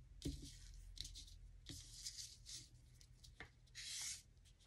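Faint scratchy strokes of a Stampin' Blends alcohol marker rubbing over crinkled seam binding ribbon to color it, with a few light taps of the marker being handled; the longest stroke comes near the end.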